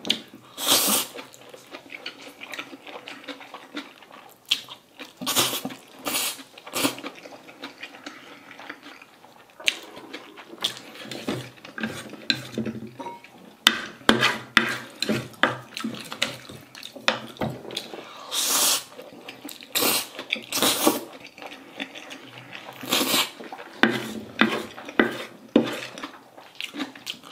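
Eating sounds: jjajang ramyeon noodles slurped and chewed, with chopsticks and a spoon clicking and scraping on a ceramic plate. Several louder slurps stand out among the many small clicks.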